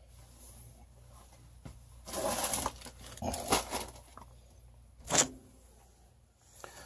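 Handling noise from hands working the pellet stove igniter and its wire connectors: a burst of rustling and scraping about two seconds in, a few sharper scrapes around three and a half seconds, and a short sharp one about five seconds in.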